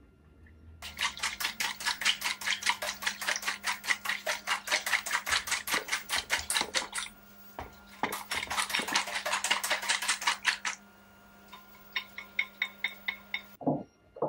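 A robot arm shakes a container of sugar over a plastic mixing bowl, rattling fast at about six or seven shakes a second. The rattle comes in two long runs, then turns sparser, with a steady low hum underneath that stops near the end.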